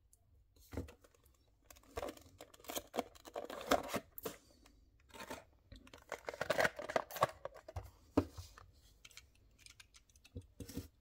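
A small cardboard box for a diecast model car being opened and handled by hand: irregular scrapes, rustles and sharp clicks of card sliding and flaps opening, busiest about two seconds in and again about six seconds in.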